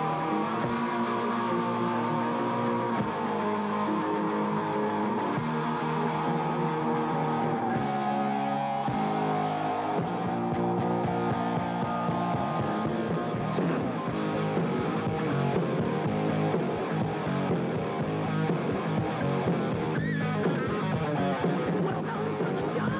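Rock-style music carried by guitar: a long held lead line wavers and slowly sinks in pitch over sustained chords, then the playing grows busier about halfway through.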